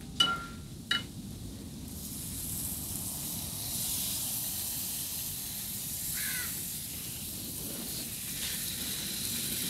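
Hot oil sizzling steadily with a whole chicken frying in it, the hiss building a couple of seconds in. There are two light clicks near the start and a short falling bird call about six seconds in.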